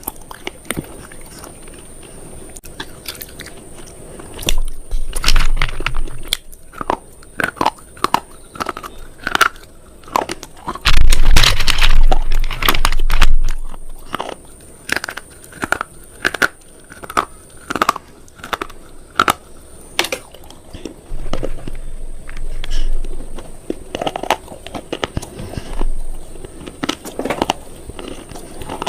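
Someone biting and chewing crunchy food close to the microphone: a run of sharp, crackling crunches, with louder, heavier bouts of chewing about five seconds in and again from about eleven to thirteen seconds.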